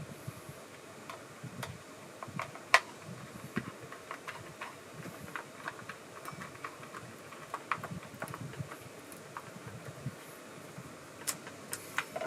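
Irregular small clicks and taps of hard plastic and metal parts being handled while a chainsaw is assembled, with one sharper click a little under three seconds in and a quick cluster near the end.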